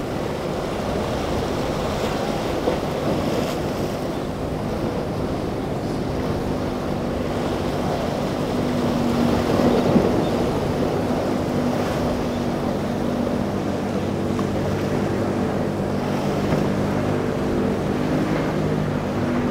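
Center-console fishing boat's engine running under way through choppy surf, its steady hum growing plainer from about a third of the way in as the boat comes closer. Waves breaking and wind on the microphone run underneath, with a louder rush of water about halfway through.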